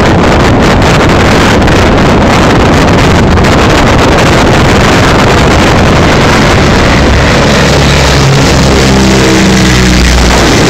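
Steady noise of a motorboat running, with wind buffeting the microphone. From about eight seconds in, the droning of a low-flying amphibious water bomber's engines comes up over it as the aircraft lifts off the water and approaches.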